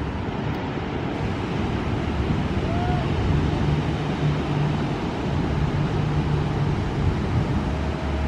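Pacific surf breaking, heard as a steady rushing noise, with wind buffeting the microphone.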